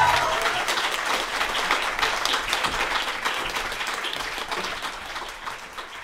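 Audience applauding after a live folk set, the clapping fading steadily away toward the end.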